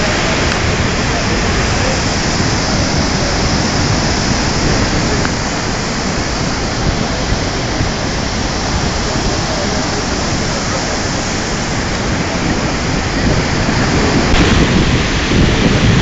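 Steady, loud roar of the Devil's Throat cascade of Iguaçu Falls, a massive volume of water plunging into the gorge. It grows a little louder near the end.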